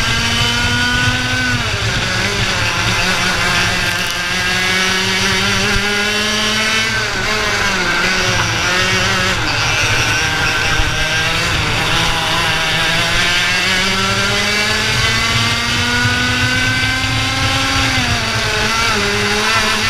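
IAME Leopard 125cc two-stroke kart engine at racing speed, heard onboard: its pitch climbs steadily along the straights and drops sharply when the driver lifts for corners, about a second and a half in, around seven seconds in and near the end, over a steady low rumble.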